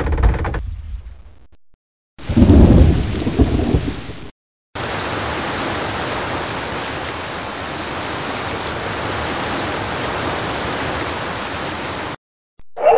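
A short, loud rumble of thunder about two seconds in, followed after a brief gap by about seven seconds of steady, even rain hiss that cuts off abruptly near the end. Before the thunder, the tail of the previous sound effect fades out.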